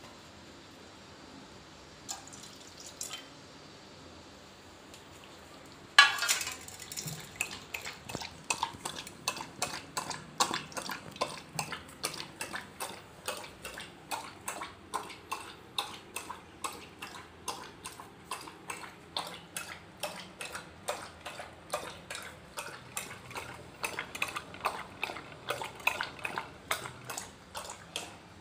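A metal bowl clanks down on a tiled floor about six seconds in, then a dog laps water from it, its tongue splashing and tapping against the metal about three times a second.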